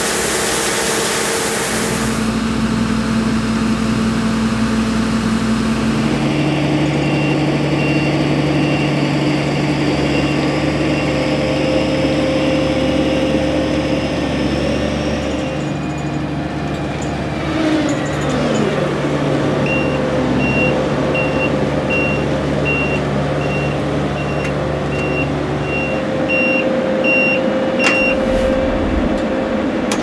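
Claas Lexion 560 combine harvester's engine running steadily, opening with a rush of grain pouring into a trailer. Late on, a reversing alarm beeps about once a second for several seconds.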